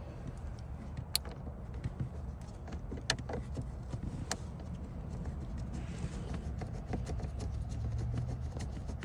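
Car engine idling steadily, with a few sharp clicks about one, three and four seconds in.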